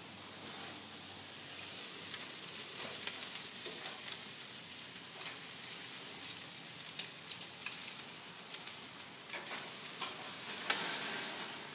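Chicken pieces sizzling on a gas grill: a steady frying hiss with scattered crackles and pops, and one sharper pop near the end.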